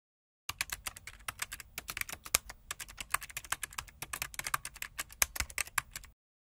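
Typing sound effect: a fast, uneven run of key clicks. It starts about half a second in and cuts off abruptly shortly before the end, with dead silence on either side.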